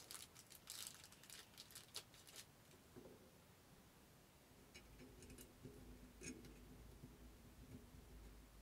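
Faint small clicks and ticks of handguard screws and small metal parts being handled: a quick run of them in the first two and a half seconds, then a few more around five to six seconds in.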